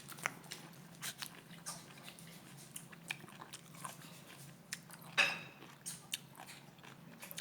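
Slime being worked by hand: scattered small sticky clicks and crackles, with one louder squish about five seconds in.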